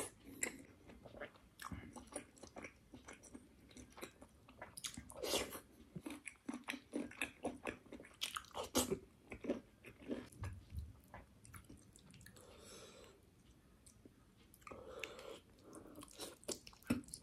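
A person chewing and biting mouthfuls of chicken curry and rice, an irregular run of short mouth clicks.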